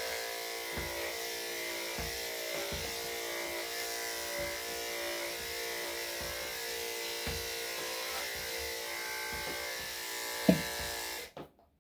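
Electric dog grooming clipper fitted with a #7 blade, buzzing steadily as it is run through a dog's body coat. A brief sharp sound comes near the end, and then the buzz cuts off suddenly.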